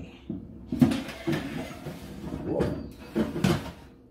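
Kitchen handling sounds: a couple of sharp knocks, about a third of a second and about a second in, followed by a stretch of rustling and scraping, with a few more short clatters later on.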